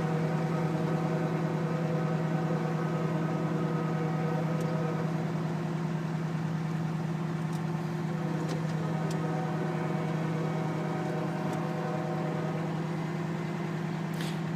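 Aerial ladder truck's engine-driven hydraulics running while the ladder moves, a steady low drone with a buzzing hum that eases slightly toward the end. A few faint clicks sound over it.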